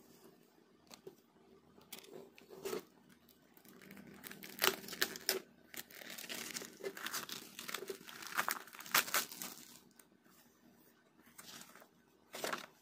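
Packaging of a 3D puzzle kit, its printed card sheets and wrapping, crinkling and tearing as it is handled and opened. There are scattered rustles at first, then a dense crinkling stretch in the middle, and one short sharp rustle near the end.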